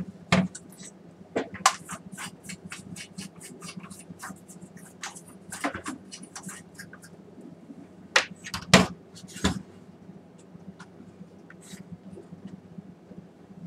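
A partly disassembled BenQ MP515 projector's metal chassis and loose parts handled on a wooden workbench: an irregular run of clicks, knocks and scrapes, with louder knocks near the start and about six and nine seconds in, over a steady low hum.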